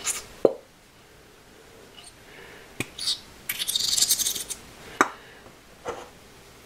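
Squeeze bottle of tacky glue squeezed over a ceramic bowl: a few sharp clicks and taps, and about three and a half seconds in, roughly a second of hissing sputter as glue and air spurt out of the nozzle.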